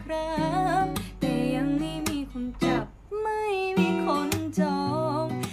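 Background music: strummed acoustic guitar chords under a melody line that slides and bends in pitch, with a short pause about three seconds in.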